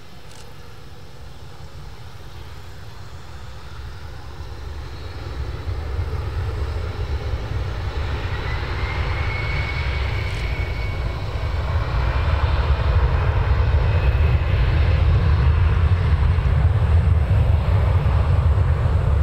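Twin turbofan jet engines of a JASDF U-4 (Gulfstream IV) throttling up as the jet rolls along the runway, likely for takeoff. A whine rises in pitch about halfway through, and a deep rumble grows steadily louder to the end.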